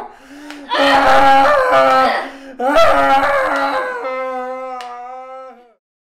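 A woman's voice singing wordless long-held notes in a slow melody, in three phrases; the last note is held and fades out near the end, followed by a brief click.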